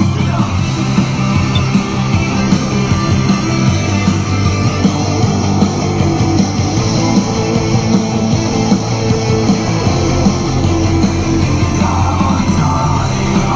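Loud rock music with electric guitar and singing.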